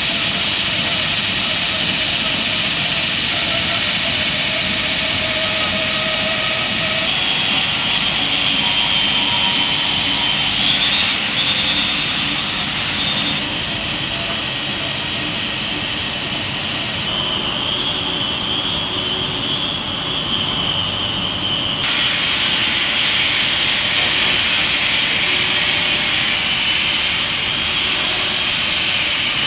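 Industrial machinery making steel lighting poles, running with a loud steady noise and a high whine; the sound changes abruptly a few times.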